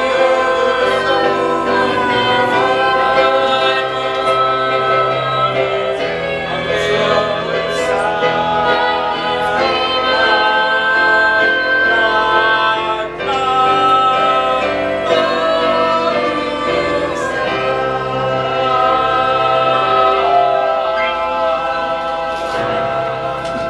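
Several voices singing together in long held chords, choir-like, with the chords changing every second or two.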